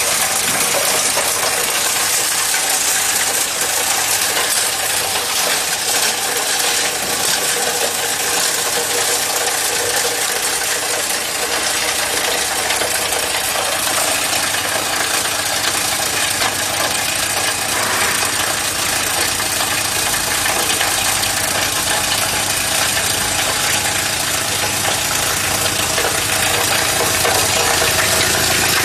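7.5 hp scissor-cut granulator running steadily and loudly, its rotor blades chopping material into the flakes that pour from its discharge.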